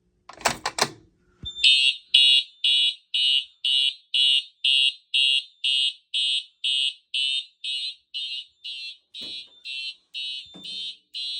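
A few sharp clicks, then a Simplex TrueAlert fire alarm horn sounding in March time: a high-pitched honk pulsing about twice a second.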